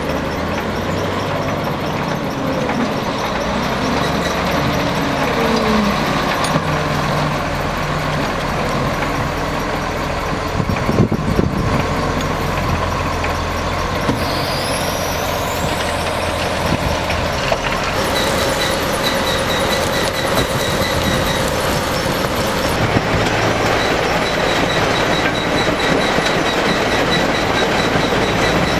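Heavy diesel machinery at work: a wheel loader's engine running under load, its pitch rising and falling in the first few seconds. About two-thirds of the way through it gives way to a steady din of plant machinery.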